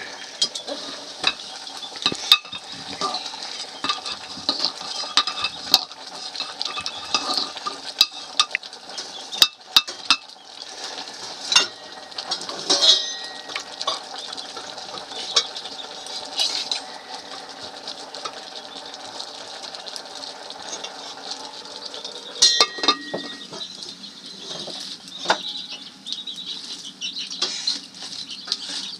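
A metal spoon or ladle clinking and scraping irregularly against a cooking pot as food is stirred, over a steady sizzle.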